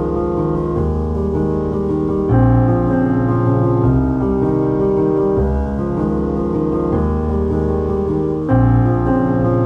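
Background instrumental music led by piano: sustained chords that change about once a second, with a louder chord about two seconds in and another near the end.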